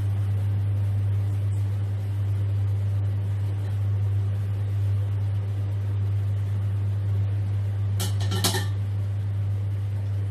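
A steady low hum runs throughout, with a short clatter of metal clinks about eight seconds in as a wire mesh strainer knocks against a steel pot while fried pork is tipped in.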